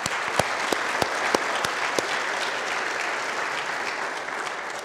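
Church congregation applauding: a dense patter of clapping, with a few louder single claps standing out in the first two seconds, fading near the end.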